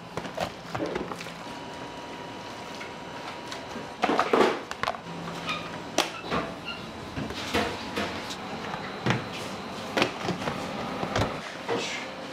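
Plastic food-storage containers being handled and stacked, giving scattered knocks and clacks of hollow plastic, the loudest about four seconds in, over a faint steady hum.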